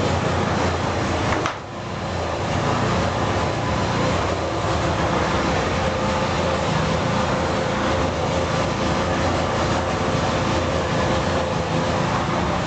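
Steady rumble and hum of a running motor vehicle, with a brief click and drop in level about a second and a half in.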